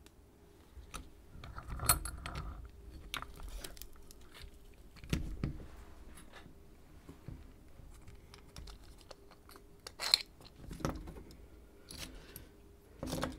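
Small metal clicks, clinks and rattles of a lock cylinder and picking tools being handled, with sharper knocks about two seconds in, about ten seconds in and near the end.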